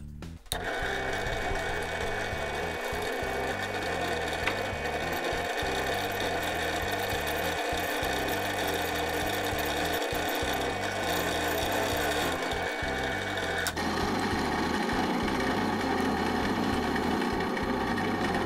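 Drill press running steadily while a center drill cuts into a steel tube held in a vise. About three-quarters of the way in, the sound changes abruptly as a number 7 twist drill bores the tap-drill hole for a 1/4-20 thread.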